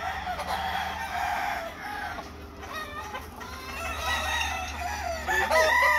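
Gamecocks crowing and clucking, with the loudest crow just before the end.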